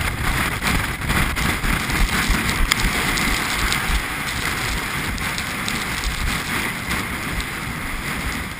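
Gale-force mountain wind buffeting the camera's microphone: a gusty low rumble under a steady hiss.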